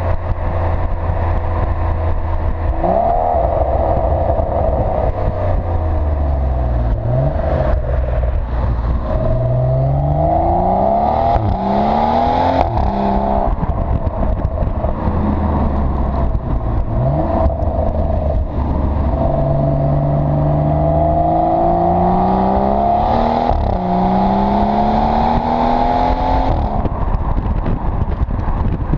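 BMW 640i's turbocharged straight-six through an M Performance exhaust, heard close at the rear while driving. The note climbs in pitch several times as the car accelerates and drops back suddenly at each upshift, over steady wind and road rumble.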